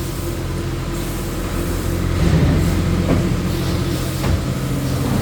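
CNC panel bender running through its bending cycle: a steady low machine hum with a few faint knocks.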